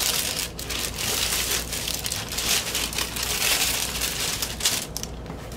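Clear plastic record sleeve and shrink-wrapped album jacket crinkling and rustling as a vinyl LP in its sleeve is slid back into the jacket, a dense crackle that eases off near the end.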